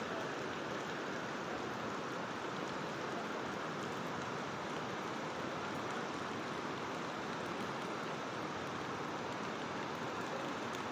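Neelum River in flood, its water rushing past in a steady, unbroken noise.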